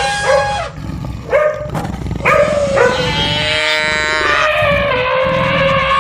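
Cartoon animal sound effects: a few short pitched animal calls, then a long call held and wavering for several seconds, starting about two seconds in.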